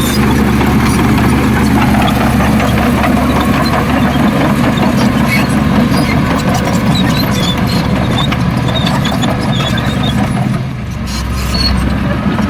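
Heavy diesel engine of earthmoving machinery running steadily, easing off briefly near the end and then picking up again.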